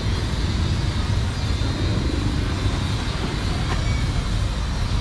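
Outdoor street ambience: a steady low rumble with an even hiss above it.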